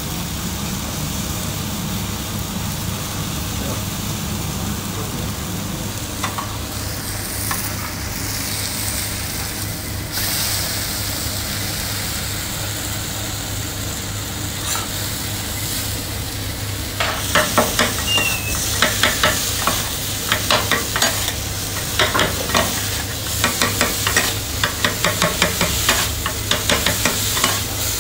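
Food sizzling on a hot flat-top griddle. About two-thirds of the way through, quick metal clacks begin, a few a second, as two spatulas chop meat against the griddle plate.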